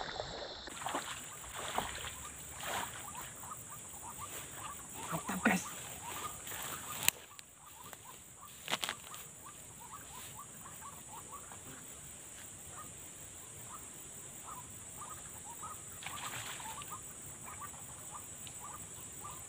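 Small animal calls: short chirps repeating rapidly, several a second, over a steady high hiss, with a few sharp clicks in the first half.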